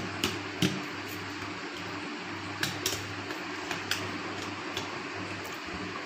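A few sharp metal clicks of a screwdriver and pliers working the bolts on a wall-fan motor housing as they are tightened. A steady low hum runs underneath.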